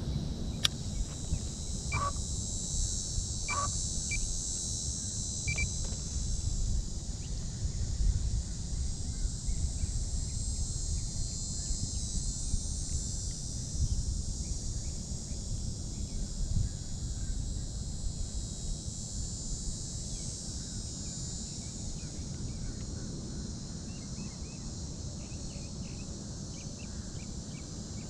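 Steady high-pitched chorus of insects shrilling, with a low rumble underneath. A few short chirps and clicks come in the first six seconds.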